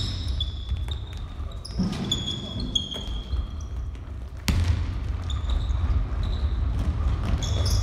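Basketball game sounds on a wooden gym floor: sneakers squeaking in short, high chirps, the ball bouncing and players' footsteps. One sharp, loud knock comes about four and a half seconds in.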